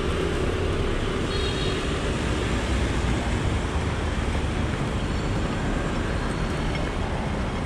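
Steady street traffic noise heard from a moving bicycle, with a low rumble of wind on the microphone throughout.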